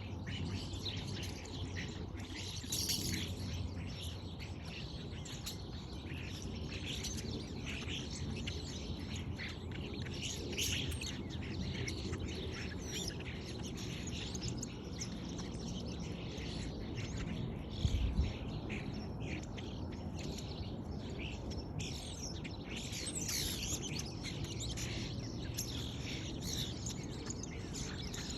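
Starlings chirping and calling continually in a busy mix of short chirps and whistles. A single low thump sounds about 18 seconds in.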